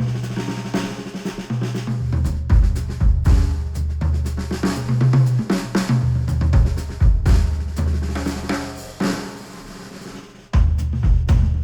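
Instrumental music with a drum kit (snare, kick drum, hi-hat) over a bass line, played through headphones and picked up by microphones. The music thins out for a couple of seconds, and the full beat cuts back in sharply near the end.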